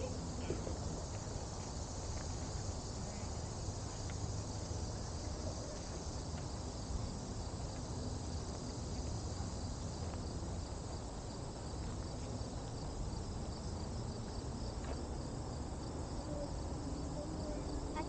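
Insects chirring in a steady, high, faintly pulsing drone, over a low steady rumble, with faint voices near the end.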